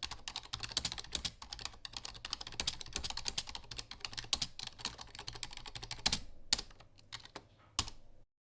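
Fast typing on a computer keyboard: a dense run of quick key clicks that thins to a few scattered clicks and then stops abruptly near the end.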